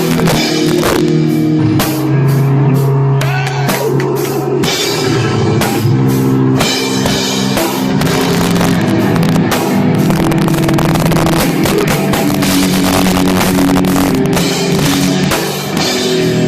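Live hardcore punk band playing loud and distorted, with drums and guitar, through an overloaded recording.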